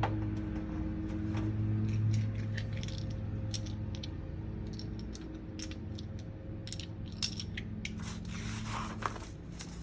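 Small plastic diorama pieces clicking and tapping against each other and the cardboard as they are handled and pressed into place, with a stretch of cardboard rustling and scraping near the end. A steady low hum runs underneath.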